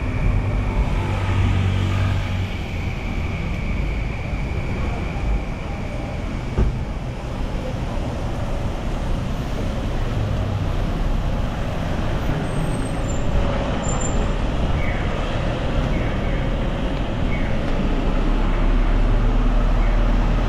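City street traffic in the rain: vehicles running past with a steady hiss. A low engine rumble builds in the last few seconds as a heavy vehicle comes close.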